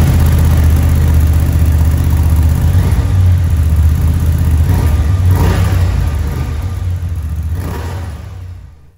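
Honda Transalp 750's parallel-twin engine running through an Akrapovic titanium and stainless-steel slip-on silencer. It idles steadily with a few short throttle blips and fades out near the end.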